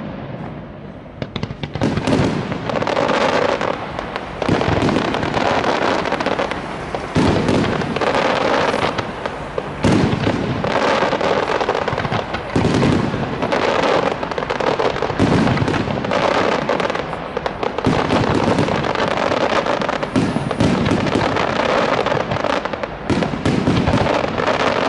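Aerial fireworks display by Parente: after a quieter first second, a dense, continuous barrage of shell bursts and crackling, with heavy bangs every second or two.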